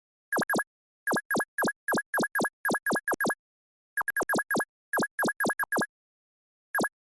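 Custom iPhone keyboard tone played at each keypress: a short electronic blip that glides quickly down in pitch, repeated about twenty times in an uneven typing rhythm, with pauses about halfway through and near the end.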